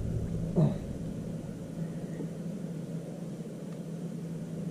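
A steady low hum, with a short voice-like sound about half a second in.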